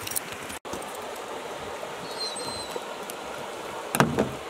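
Steady rush of a river flowing, with one brief loud clunk near the end.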